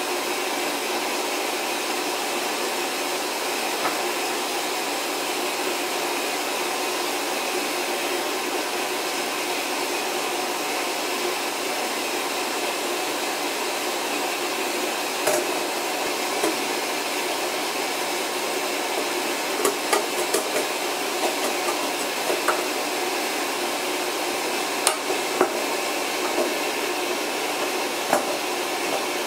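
Steady rushing noise of a water softener running its regeneration (self-cleaning) cycle. Over it, scattered clicks and knocks come from a plastic mounting bracket being handled and screwed onto a square steel electrical back box, mostly in the second half.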